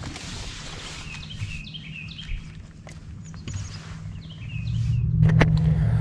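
Small songbirds chirping in short runs of quick repeated notes, about a second in and again near the four-second mark. A low steady hum swells in under them over the last second and a half, with a couple of sharp clicks near the end.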